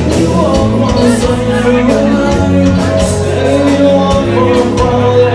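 Rock band playing live and loud, with drums keeping a steady beat under sustained instruments.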